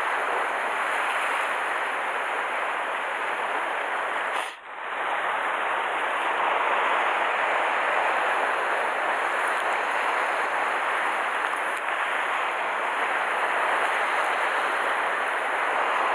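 Sea surf washing against a rocky shore: a steady hiss of breaking water with no distinct strokes, dipping out briefly about four and a half seconds in.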